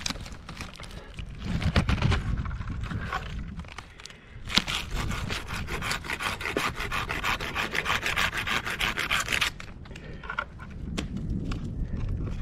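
A tree climber's rope and gear scraping and rubbing against pine bark during the ascent. About a third of the way in, a run of fast rasping strokes starts and lasts about five seconds, then the scraping turns irregular and quieter.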